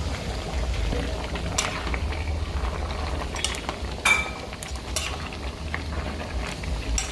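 A spoon stirring pork in a metal cooking pot, scraping and clinking against the pot now and then, with one sharp ringing clink about four seconds in.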